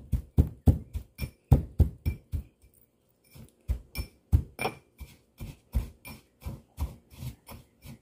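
A pestle pounding ingredients for a sambal in a stone mortar: steady knocks about three to four a second, with a short pause about three seconds in.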